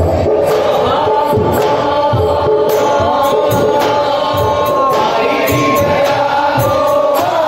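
Live Indian folk singing over an amplified microphone: a man leads and a group sings along, with barrel drums (dhol) beating a steady rhythm.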